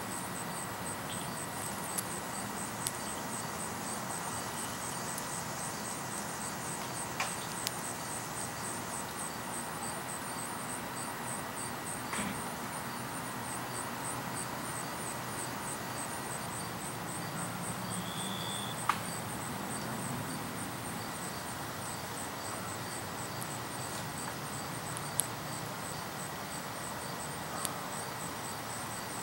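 Outdoor background with an insect chirping in a fast, high-pitched, even pulse, and a few sharp clicks scattered through. A short high chirp about eighteen seconds in.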